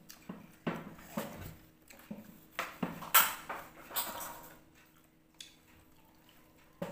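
Close-up eating sounds: irregular smacks and clicks of chewing while eating rice and fish by hand from a plate. The sounds die away about two-thirds of the way through, and a short knock comes at the very end.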